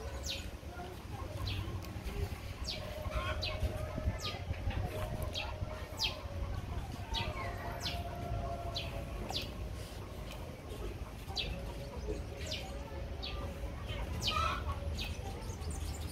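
Small birds chirping: a scattered series of short, high, down-sliding chirps, roughly one a second, over a steady low rumble.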